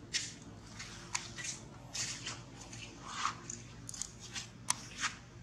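Irregular short clicks and crackles, about a dozen scattered through, over a faint low steady hum.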